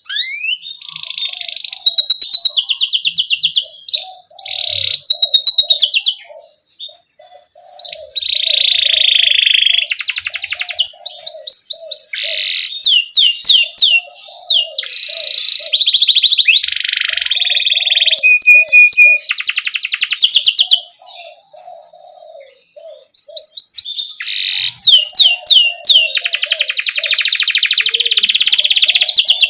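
Domestic canary singing in long phrases of fast rolling trills and repeated chirps, high-pitched, pausing briefly twice between phrases.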